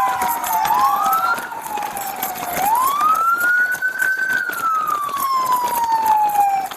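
Police siren wailing, slowly rising and falling; two wails overlap at first, then a single slow wail climbs and falls away. Irregular knocks and rustling from running footsteps are heard underneath.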